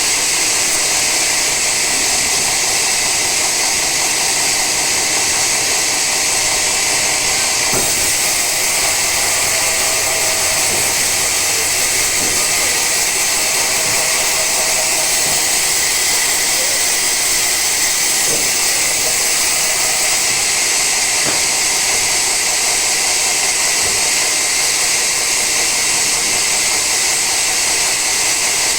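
Sawmill saw cutting through an old teak log: a steady, high-pitched hiss of blade in wood.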